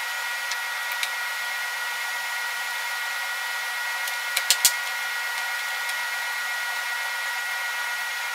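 Steady background hiss with a faint high whine in it, broken about four and a half seconds in by three quick sharp clicks of plastic Lego pieces being handled.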